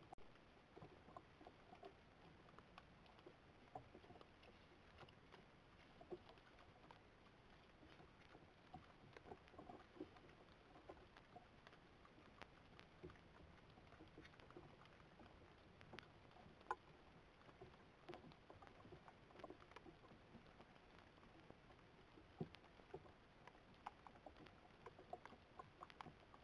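Near silence: faint outdoor night ambience picked up by a trail camera, a low hiss with scattered soft ticks and crackles.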